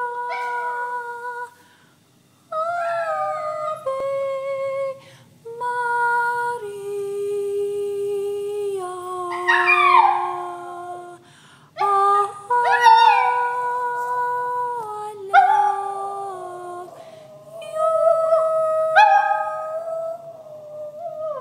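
Toy poodle howling, with quick high cries that rise and fall, over a slow tune of long held notes that step up and down with short breaks between phrases.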